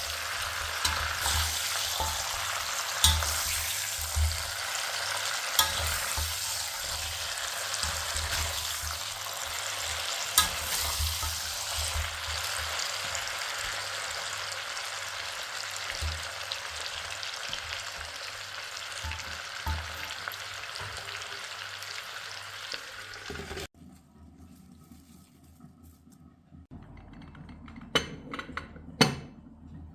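Mutton sizzling as it fries in a karahi while being stirred, with sharp clicks of the spatula against the pan. The sizzle cuts off suddenly about three-quarters of the way through, leaving a quieter stretch with a couple of knocks near the end.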